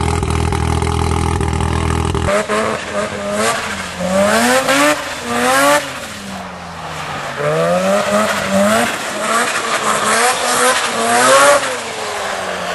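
Mazda RX-7 twin-rotor engine idling steadily through its exhaust. After an abrupt cut about two seconds in, the car is driven off and revved hard again and again, its pitch sweeping up and dropping back with each rev and shift.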